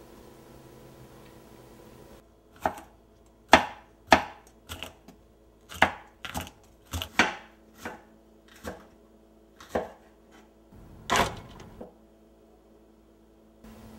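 Kitchen knife chopping vegetables on a wooden cutting board: about a dozen sharp, unevenly spaced strikes, starting a couple of seconds in and stopping shortly before the end.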